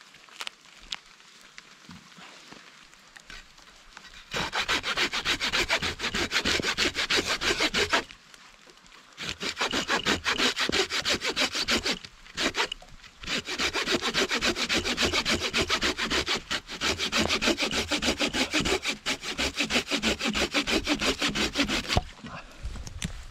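Folding hand saw cutting through a dead log in rapid back-and-forth strokes, in three runs of several seconds with short pauses between. Before the sawing starts, about four seconds in, there are only a few faint clicks.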